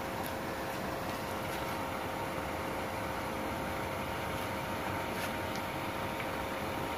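Pond paddlewheel aerator running: a steady mechanical hum with a couple of constant tones over the even rush of churned water.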